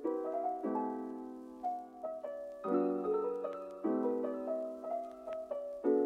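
Background music: a slow, gentle piano piece, chords struck about once a second and left to ring.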